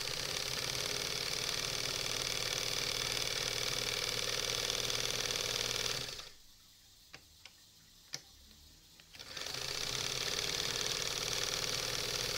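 Singer 320K sewing machine running steadily as it zigzag-stitches through leather. About six seconds in it stops for roughly three seconds, with a few light clicks while the leather is turned, then starts stitching again.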